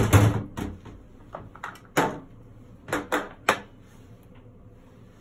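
Kitchenware being handled at a stove: a heavy thump as something, most likely a bowl, is set down, followed by several short, light knocks and clicks, the last about three and a half seconds in.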